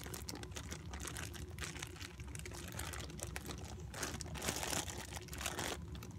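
Plastic zip-top bag crinkling and rustling in the hands as old, stiff slime is worked out of it, with irregular small crackles.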